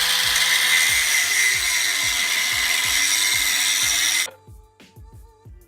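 Electric drill boring out a rivet in a steel truck frame, its motor pitch sagging under load, cutting off suddenly about four seconds in. Background music with a steady beat plays throughout.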